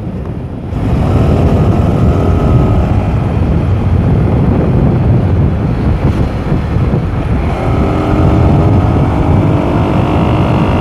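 Motorcycle engine running while riding at speed, under heavy wind rumble on the microphone; the engine note climbs over the last few seconds as the bike speeds up.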